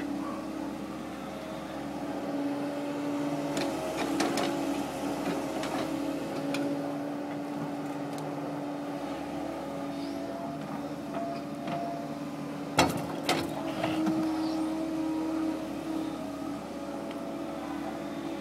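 Kobelco 135SR excavator's diesel engine and hydraulics running steadily under load as it digs, lifts and swings, a steady hum that shifts slightly in pitch. A few faint clicks come about four seconds in, and two sharp knocks about thirteen seconds in.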